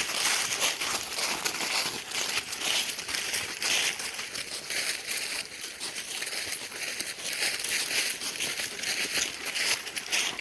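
Footsteps crunching over the forest floor, a steady uneven crackle of many small crunches.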